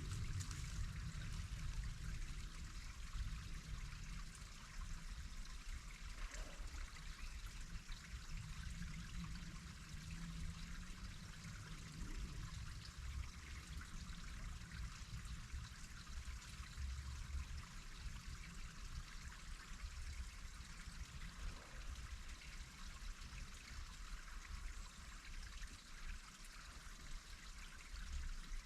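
Steady rush of running water, like a trickling stream, with an uneven low rumble underneath.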